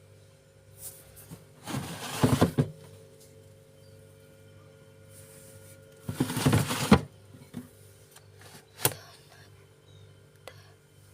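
Things being moved about in an open refrigerator: two rustling, scraping bursts about a second long each and a sharp click near the end, over a steady low hum.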